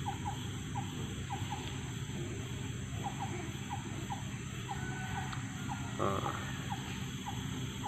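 Forest ambience: a steady high-pitched insect drone, with a short chirp repeating about twice a second.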